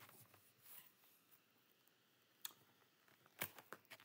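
Near silence broken by a few faint clicks, one about two and a half seconds in and a quick cluster near the end: handling noise from a phone moved against clothing.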